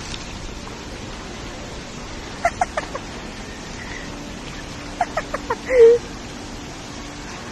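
Pool water churning and splashing as people wade and swim through it. Two short runs of quick high-pitched calls cut through it, the second ending in a louder wavering cry about six seconds in.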